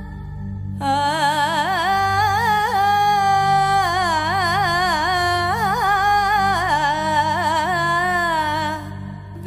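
Background song: one voice sings a melody full of quick wavering ornaments over a steady low pulse. The voice comes in about a second in and breaks off briefly near the end.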